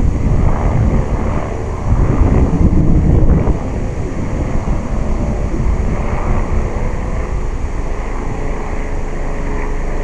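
Strong wind buffeting the microphone: a loud, gusty low rumble, heaviest for the first three and a half seconds, then easing to a steadier buffeting.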